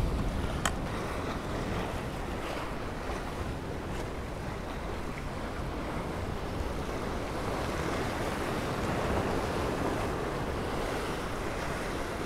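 Surf breaking and washing against granite jetty rocks, with wind buffeting the microphone. A single sharp click comes less than a second in.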